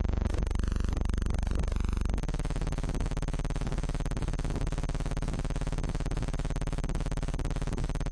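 A loud, steady buzz with a rough, rapid pulse. Its tone shifts about two seconds in, and it cuts off suddenly near the end.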